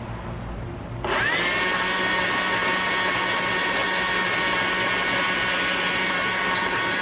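Stihl two-stroke chainsaw idling, then revved up to full throttle about a second in and held at a steady high pitch while the bar carves into the wood.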